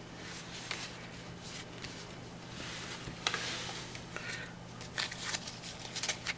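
Pokémon trading cards being handled and sorted: scattered light clicks and soft rustles of card stock, with a longer papery swish about three seconds in.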